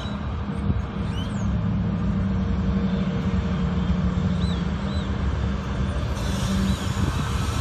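Approaching diesel freight locomotives: a steady low engine drone and rumble, with a higher hiss of the train coming in about six seconds in. A few faint bird chirps over it.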